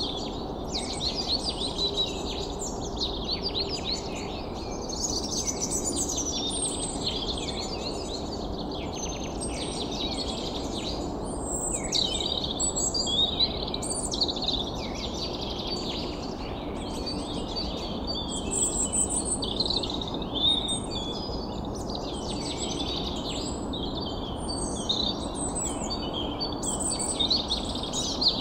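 Many birds chirping and singing at once in a dense, overlapping chorus, over a steady low background rush.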